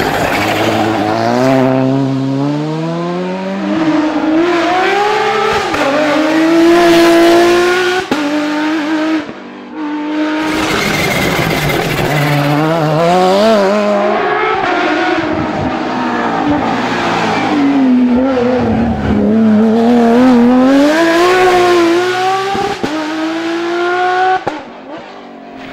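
Volkswagen Polo GTI R5 rally car's turbocharged four-cylinder engine driven hard through corners, revs climbing and dropping again and again with gear changes and lifts off the throttle. Near the end a Porsche 911 race car's engine is heard.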